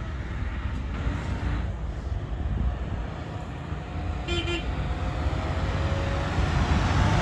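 A DSB IC4 train's electric horn sounding two short beeps about four seconds in, over the steady rumble of a train, which grows louder near the end.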